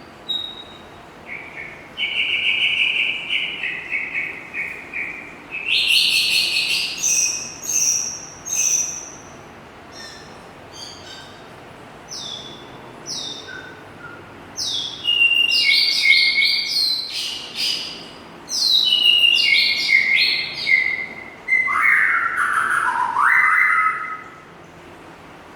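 A murai songbird singing a varied song of loud whistled phrases: a quick trill about two seconds in, bright sweeping notes around six to nine seconds, a dense run of falling whistles from about fifteen seconds, and lower swooping notes near the end, with short pauses between phrases.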